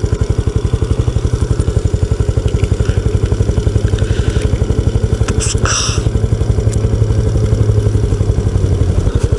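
Honda Super Cub's single-cylinder four-stroke engine running steadily while cruising, heard from on the bike, with a rapid, even beat of exhaust pulses. A brief rushing noise comes in a little past halfway.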